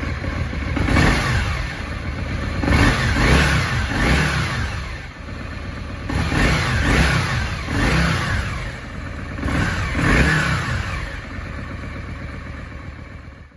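1999 Yamaha Virago 535's air-cooled V-twin engine revved on the stand in neutral: repeated throttle blips, the revs rising and falling back every second or two over a steady idle.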